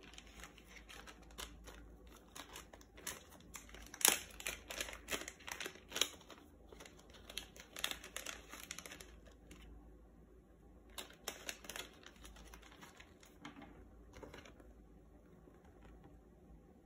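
Small clear plastic zip-lock bag crinkling and crackling as it is handled, with the small hardware inside rustling against the plastic. The crackling comes in two spells with a short pause between them, the loudest near the start of the first spell.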